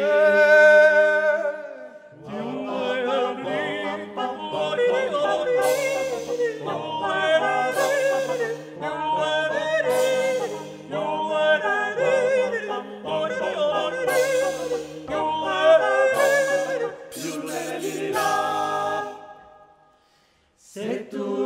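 Male a cappella vocal group singing a folk song in Lombard dialect in close harmony, several voices together. It opens on a held chord, moves into a rhythmic sung passage, and breaks off briefly near the end before starting again.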